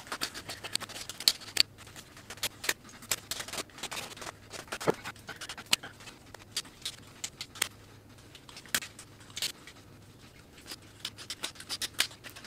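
Swiss Army knife blade whittling a wooden branch into a round handle: a quick, irregular run of short, sharp shaving cuts and scrapes, several a second.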